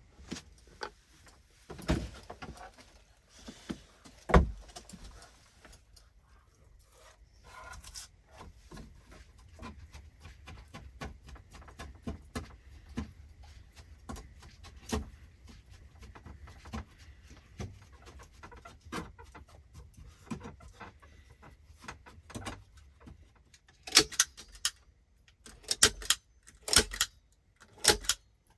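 Scattered light clicks and knocks, then a long stretch of soft, irregular crackling. Near the end come a run of loud, sharp metallic clicks and knocks as the latch or lock of a wooden plank door is worked and the door rattles.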